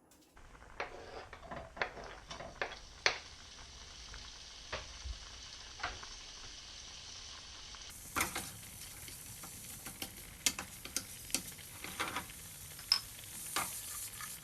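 Half-inch strips of bacon frying in a pan: a steady sizzle that starts moments in and grows brighter about eight seconds in, with scattered sharp pops and clicks.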